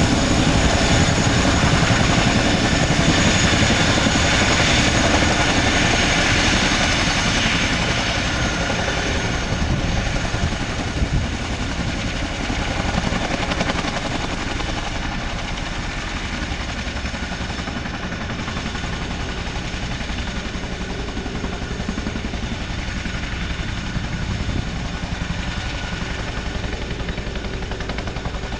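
Boeing CH-47F Chinook taxiing: its twin Lycoming T55 turboshaft engines whine steadily over the fast beat of its two tandem rotors. The sound eases slightly about eight seconds in.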